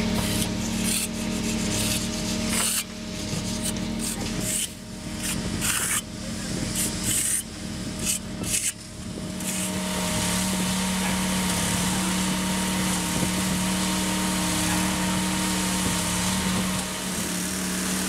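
Irregular scraping strokes of a hand edging tool on a wet concrete kerb, over a steady engine hum. About ten seconds in, this gives way to the even drone of a concrete kerbing machine and mixer truck running.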